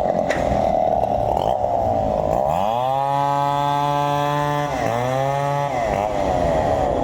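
Chainsaw running at high revs, its pitch dipping and climbing back several times as the throttle and load change.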